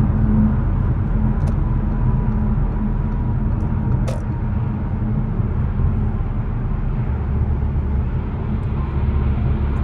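Audi A7 on the move: steady engine and road rumble, with a shift in the low rumble about seven seconds in and a single light click about four seconds in.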